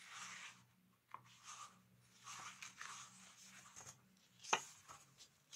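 Pages of a softcover book being turned and handled: faint paper rustling and sliding, with a sharper paper snap about four and a half seconds in.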